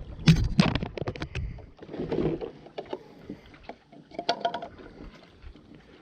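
A quick run of clicks and knocks from handling the outboard's plastic fuel filter cup, then two short pours of the old fuel from the cup into a clear cup.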